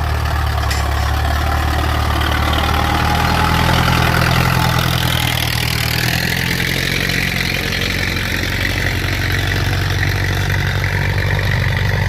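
Ford 6610 tractor's turbocharged four-cylinder diesel engine running loud and steady under load while pushing heavy wet soil.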